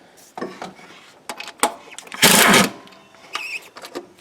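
Handheld power driver or wrench set to reverse, run in one loud burst of about half a second to back out a bolt, with a few tool clicks and knocks before it.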